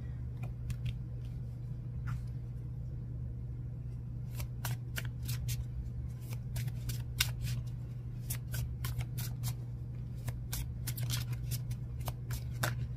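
Oracle cards being shuffled by hand: irregular quick card flicks and snaps, sparse at first and much thicker from about four seconds in, over a steady low hum.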